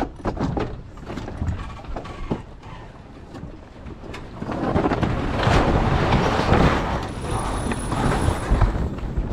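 Deck and rig noise aboard an X-99 racing sailboat during a tack: sharp clicks and knocks of winch and sheet gear. From about four and a half seconds in, a loud rushing noise takes over.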